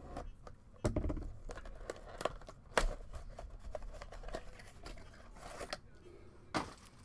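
Plastic wrapper on a pack of trading cards being torn open and crinkled: a run of sharp crackles and rips, the loudest about a second in and near three seconds.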